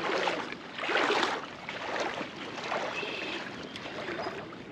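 Shallow river water sloshing and splashing in uneven swells about once a second.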